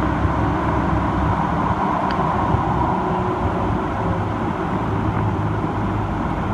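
Light-rail train running through a tunnel, heard from inside the car: a steady rumble of wheels on rail and running gear, a little brighter for a couple of seconds about a second in.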